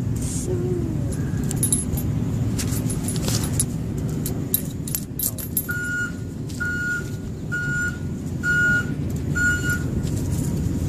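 Steady low rumble with light metallic jingling, and from about halfway in an electronic beeper sounding five even, short beeps about a second apart.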